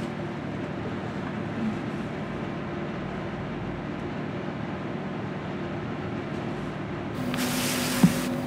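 Steady, low, noisy drone with a faint hum, the ambient intro before the song. About seven seconds in, a hissing swell rises and a held low note comes in, with a single thump about a second before the end.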